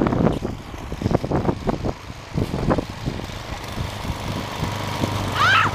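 An engine running steadily at low speed, under a series of short crunches and knocks. A brief high cry comes near the end.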